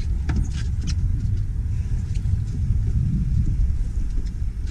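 Steady low rumble of wind buffeting the microphone on an open boat, with a few light clicks and taps in the first second.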